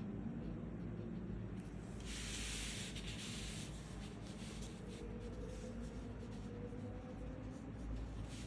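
A sheet of paper sliding and rubbing across the desk for about a second and a half, a couple of seconds in, with faint scratches of a brush pen's soft tip on paper before and after.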